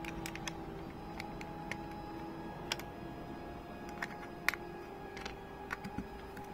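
Plastic Lego pieces clicking and tapping as they are handled and pressed onto a small brick-built car: irregular light clicks, the sharpest about four and a half seconds in, over a faint steady hum.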